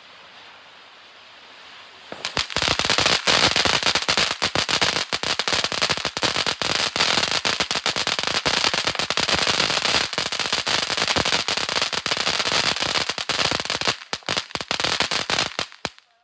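Ground fountain firework spraying with a low hiss, then from about two seconds in breaking into a loud, dense crackle of many rapid small pops. The crackle thins to scattered pops and stops just before the end: the fountain is burning out.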